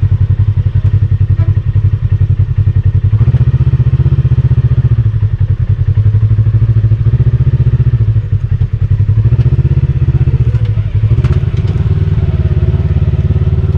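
Side-by-side UTV engine running at low speed, a fast, steady pulsing note that rises and falls slightly a few times, with occasional clatter and knocks.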